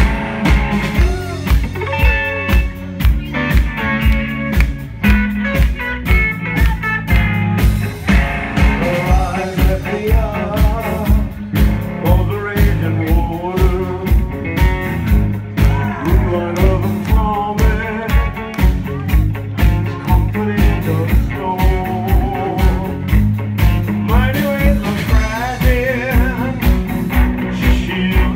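Live rock band playing at full volume: a drum kit keeps a steady beat of about two strokes a second under electric bass and electric guitar, with a male singer singing into a handheld microphone.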